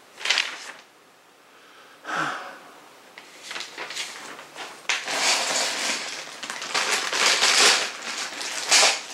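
Packaging of a flat-pack storage rack being handled, rustling and crinkling in two short bursts and then almost without a break over the last four seconds.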